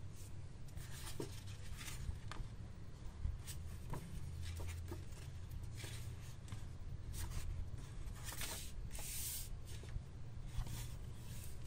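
Pages of a hardcover sketchbook being turned by hand: irregular paper rustles and swishes, with a longer swish about nine seconds in, over a low steady hum.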